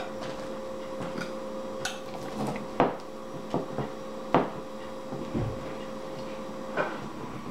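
A metal utensil knocking and scraping against a glass baking dish as a square of chilled Rice Krispies treat is pried out: half a dozen sharp clicks spread over several seconds.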